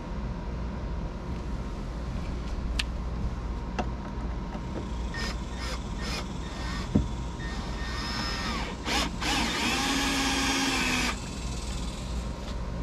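Cordless drill driving screws to fasten a boat's step lid back down. It gives a few short trigger blips midway, then a steady run of about two seconds near the end.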